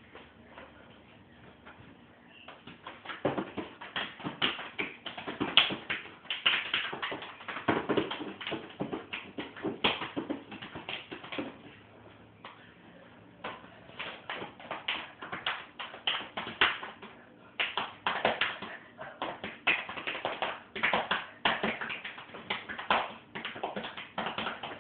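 Quick, irregular slaps and pats of hands on a body, a fast run of sharp taps that starts about two and a half seconds in and keeps going.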